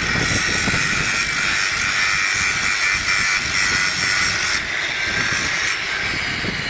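Angle grinder cutting steel, a steady high whine that eases off near the end.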